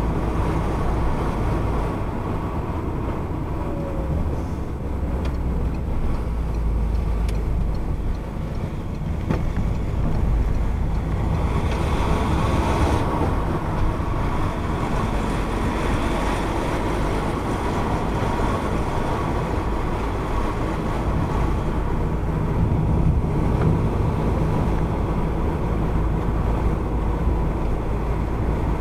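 A car driving along a narrow paved country lane, heard from inside the cabin through a dash cam's microphone: steady engine and tyre noise with a low rumble. There is a brief rise in hiss near the middle.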